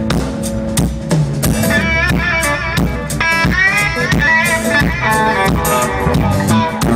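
Live band playing amplified rock music: drum kit and guitar with bass, a wavering melody line over it in the middle.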